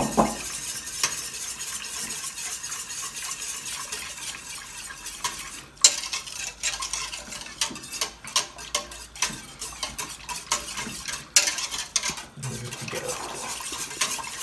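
Wire whisk beating creamy tomato soup in a stainless steel stockpot, blending in the egg-yolk and cream liaison: a steady swishing with frequent clicks of the wires against the pot's sides, and a few sharper knocks.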